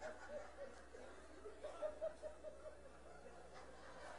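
Faint audience chuckling and laughter, with a short run of laughs about halfway through.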